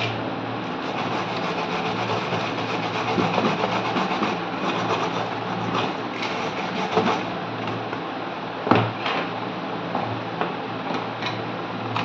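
Tweezers scraping and rubbing carbon deposits off the button contacts of a washing machine control board, with scattered small clicks and one sharp knock about nine seconds in, over a steady mechanical hum.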